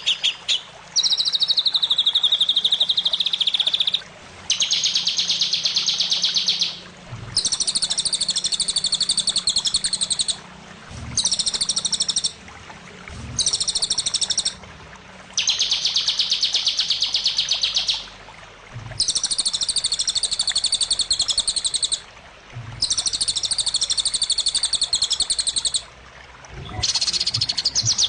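Songbird singing in long, rapid, high-pitched trills, each lasting two to three seconds, with short pauses between, about nine in all. It is a masteran tutor recording used to train caged white-rumped shamas (murai batu).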